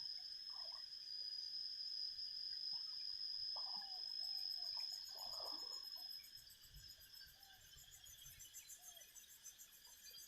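Insects calling: a steady high-pitched whine that stops about six seconds in, followed by a fast, pulsing, very high trill, with a few short bird chirps scattered through.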